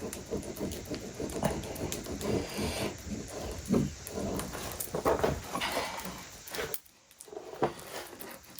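Veneer hammer being worked over crotch mahogany veneer laid in hide glue, pressing it down: irregular rubbing and scraping strokes, with a brief pause about seven seconds in.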